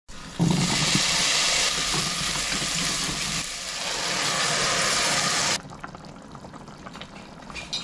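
Diced zucchini tipped into hot olive oil and garlic in a stainless pot lands with a thump and sizzles loudly, and crushed canned tomatoes are then poured over the vegetables. About five and a half seconds in the sound drops sharply to the much quieter simmering of the tomato stew.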